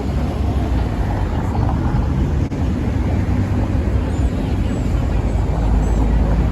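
Steady low rumble of a tram running along the street, heard from on board.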